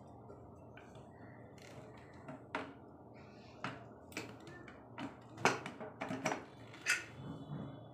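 Stovetop pressure cooker's metal lid being twisted loose and lifted off after the steam has been let out: about ten irregular metal clicks and knocks, the loudest a little past the middle.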